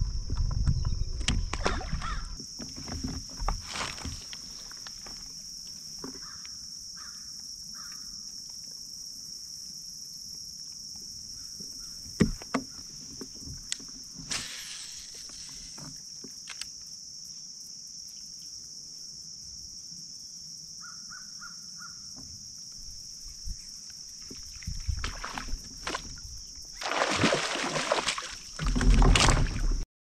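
Outdoor lake ambience heard from a kayak: a steady high-pitched drone with a few short runs of distant bird calls, and louder bumping and rustling at the start and near the end.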